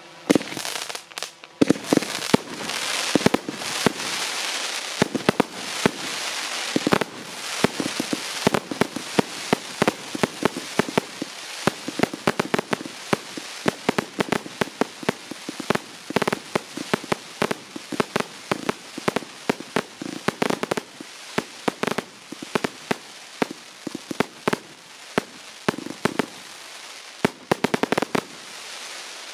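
Aerial fireworks bursting overhead: a rapid, irregular string of sharp bangs and crackles over a steady hiss. It starts suddenly just after the opening and grows sparser in the second half, with a last dense cluster of cracks near the end.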